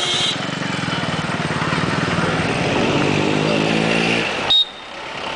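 Motorcycle engine running as it approaches along the street, growing louder until about four and a half seconds in. The loudest sound is a single short, high-pitched beep near the end, after which the engine sound drops away suddenly.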